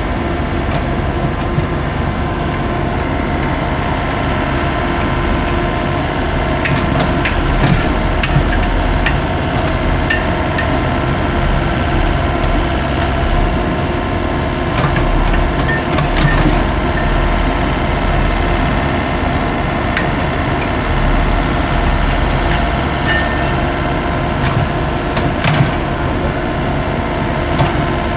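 Heavy diesel construction machinery running steadily, with scattered metallic clanks and knocks.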